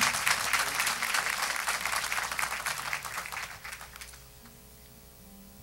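Church congregation applauding, dying away about four seconds in, then a faint held chord from an instrument.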